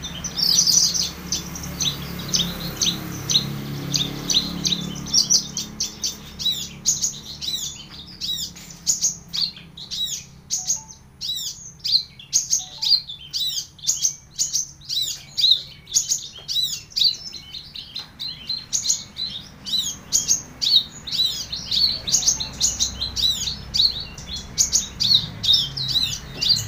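Caged Horsfield's bush lark (branjangan, parva race) singing non-stop: a rapid, busy stream of short, high chirping notes with hardly a pause.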